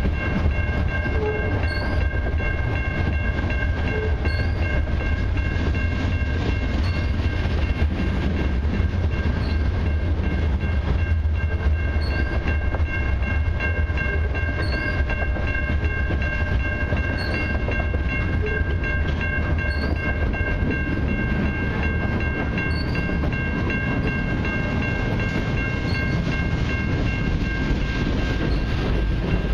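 Freight train cars, covered hoppers and then tank cars, rolling past at a level crossing: a steady heavy rumble and rattle of wheels on rail, with a steady high ringing tone held over it.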